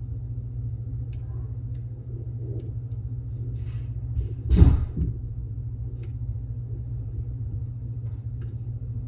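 Lock pick working the pins of a Mul-T-Lock Classic Pro dimple lock under tension: a few faint, sparse metallic ticks over a steady low hum, with one loud knock about four and a half seconds in.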